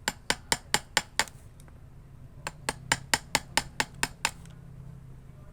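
A hand tool tapping sharply on wood, in two quick runs: about six taps, a pause of about a second, then about ten more at roughly five a second.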